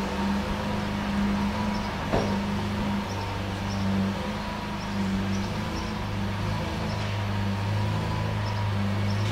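Lamborghini Aventador V12 with a Capristo exhaust idling steadily, with a single short knock about two seconds in.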